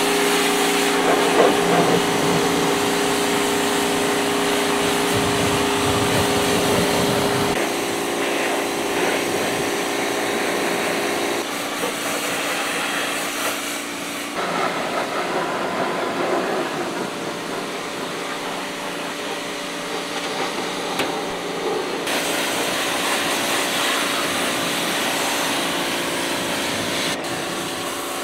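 Pressure washer running with a steady motor hum and a hissing jet of water sprayed onto a tractor. The hum and spray shift abruptly several times.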